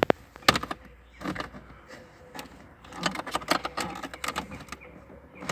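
Plastic dashboard trim on an Opel Astra K being pried loose with a trim removal tool: two sharp clicks near the start, then scattered clicks and rattles of the plastic clips and panel a couple of seconds later.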